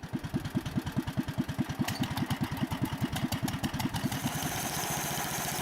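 Small engine running with a regular low chugging beat, about seven beats a second; from about four seconds in it evens out into a steadier, hissier running sound.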